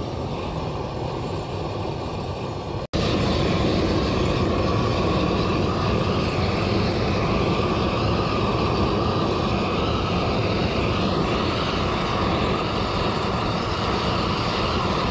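Propane torch on a long wand running steadily, its flame played over the flattened top of a log to burn it clean. It turns suddenly louder and closer about three seconds in.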